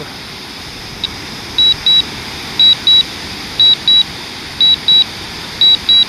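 DJI Mavic Air drone controller sounding its warning: short, high double beeps repeating about once a second, starting about a second and a half in. The drone is on automatic Return-to-Home because its battery is low.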